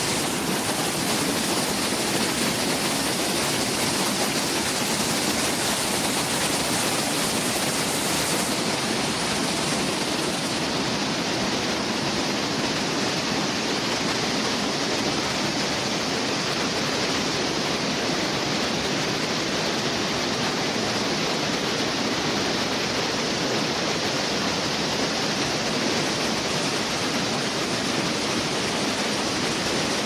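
Mountain stream rushing over rocks and small cascades: a steady, unbroken rush of water.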